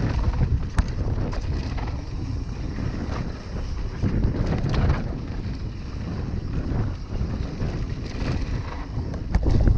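Wind rumbling on the microphone of a mountain bike riding fast down a dry dirt singletrack, with tyre noise on the dirt and a few sharp clicks and knocks, about a second in and again near the end.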